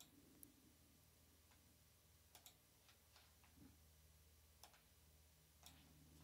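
Near silence: faint room tone with a few faint, scattered clicks.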